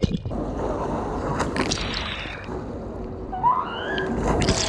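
Swimming-pool water splashing and sloshing right at the camera, held at the water's surface. A short high cry rises about three and a half seconds in, and a bigger splash comes near the end as a child is thrown into the pool.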